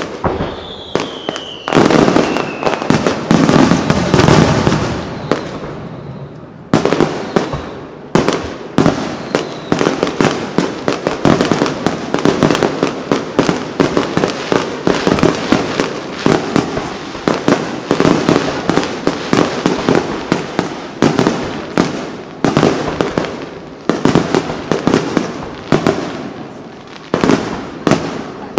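Aerial fireworks in a rapid-fire barrage: shell bursts bang several times a second, with crackling between them, and the densest, loudest stretch comes in the first few seconds. A whistle falls in pitch near the start.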